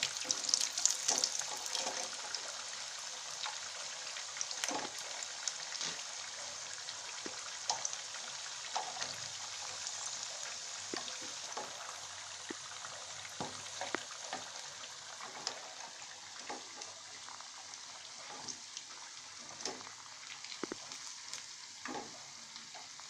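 Suji kachoris deep-frying in hot oil in a shallow pan, done golden brown on both sides: a steady sizzle with scattered crackles and light clicks as they are lifted out with a slotted spoon.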